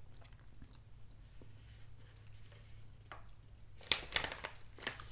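Plastic food bag crinkling as it is handled and turned over, a run of sharp irregular crackles starting about four seconds in, over a faint steady low hum.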